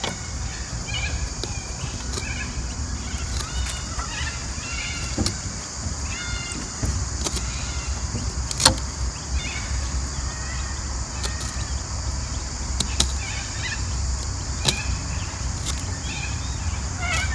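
Fillet knife cutting into a freshwater mullet on wooden decking: scattered soft cuts and taps of the blade, with one sharp knock about nine seconds in. A steady low rumble and a high hiss sit underneath.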